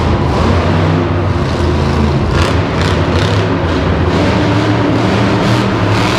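Monster truck engines running loud, their pitch rising and falling as they rev, with a few brief sharper flares of engine noise partway through.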